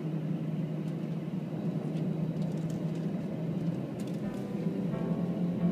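Steady cabin hum of an airliner taxiing, heard from inside at a window seat: a low engine drone over airflow noise. Faint higher tones join about four seconds in.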